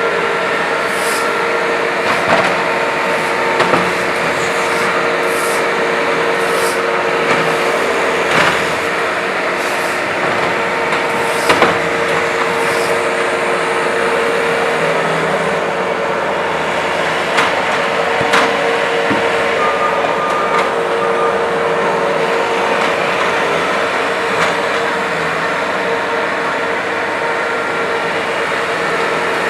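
Skid steer loader running steadily under work, with a steady drone, and occasional sharp knocks and clanks scattered through, one louder near the middle.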